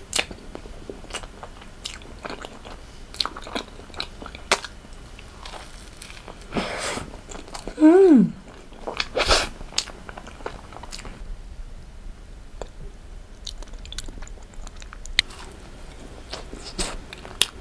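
Biting into and chewing a vanilla crème choux cream puff with a crisp, crunchy pastry shell, in many small crackling crunches. About eight seconds in there is a short hum that falls in pitch, followed by a louder crunch.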